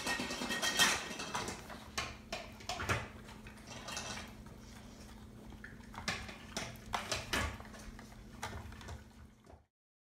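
A dog nosing at a plastic puzzle feeder to get its food: irregular clicks, knocks and clatters of the plastic lids and base, busiest about six to seven seconds in. The sound cuts off suddenly near the end.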